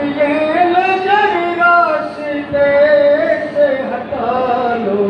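A man singing unaccompanied into a microphone, holding long notes that bend up and down.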